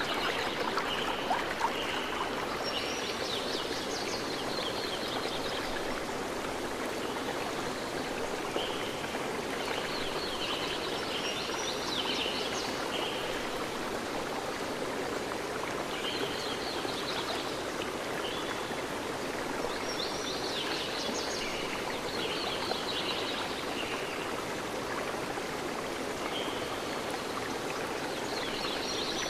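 Running stream, with birds chirping in short spells every few seconds.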